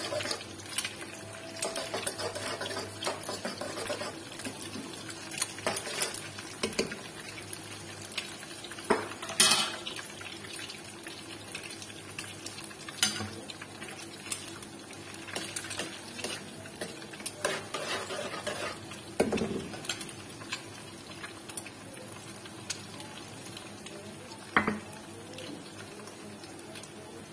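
Eggs frying in oil in a karahi, with a steady sizzle, while a metal slotted spoon scrapes and stirs them into small scrambled pieces, knocking against the pan now and then.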